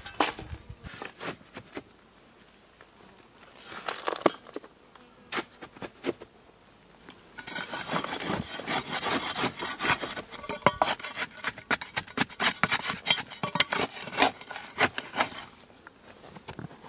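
A shovel digging into dry, root-filled soil, with scrapes and knocks. In the middle stretch dug earth and small stones are tipped into a galvanized metal tub and rattle densely against the metal for several seconds.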